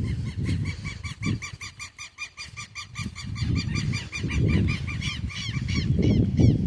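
A bird calling in a long rapid run of short rising-and-falling notes, about five a second, over a loud low rumbling noise.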